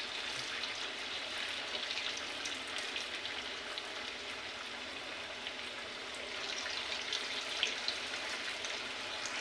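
Cabbage manchurian balls deep-frying in hot oil in a kadhai: a steady bubbling sizzle with fine crackles throughout.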